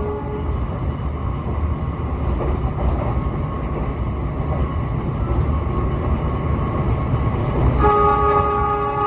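Argo Bromo Anggrek train running with a steady low rumble. Its horn, a chord of several steady tones, stops just after the start and sounds again, held, for the last second or so.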